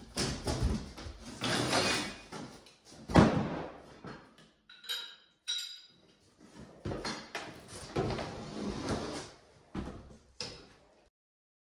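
A large board covering a doorway being pulled out of the frame and moved, with irregular scraping and knocking and one loud thump about three seconds in.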